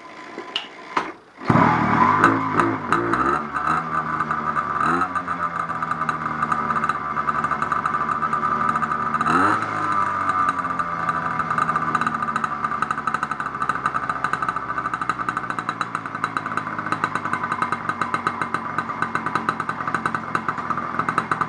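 China Girl 80cc two-stroke bicycle engine catching about a second and a half in, after a few clicks, and then running loudly. It is revved up and down a few times in the first ten seconds and then settles into a steady run. It fires because a small light bulb puts a load on the magneto's white wire.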